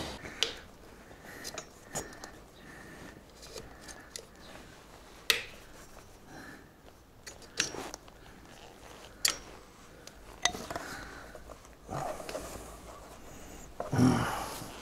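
Scattered sharp metal clinks and scrapes from a screwdriver punched through a motorcycle oil filter, used as a lever to twist the stuck filter loose, with a louder clunk near the end.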